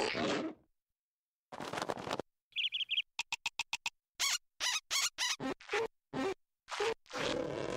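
Cartoon pigeon sound effects: a quick run of four high chirps, then a rapid flutter of short clicks like wingbeats, followed by a string of short bird calls.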